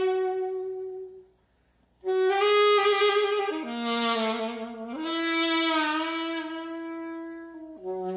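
Solo alto saxophone playing slow, held notes. The first note dies away about a second in, there is a brief silence, then a long phrase of sustained tones that drops in pitch and climbs back to a long held note.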